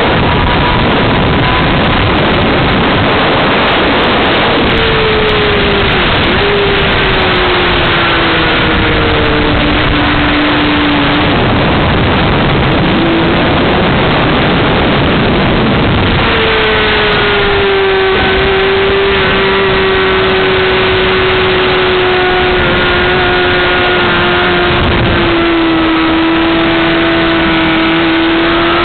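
Honda CBR600RR inline-four sport bike at speed on a race track, heard under heavy wind rush on the microphone. The engine note falls for several seconds as it slows, then climbs sharply about halfway through and holds high, sinking slowly before rising again at the end.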